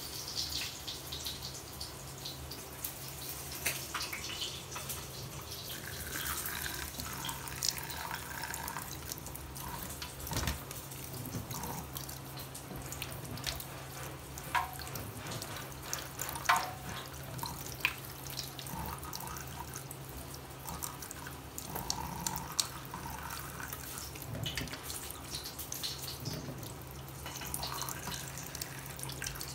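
Thin stream of water trickling from a kitchen tap into a stainless-steel sink, with irregular drips and small splashes as a cat paws at the flow.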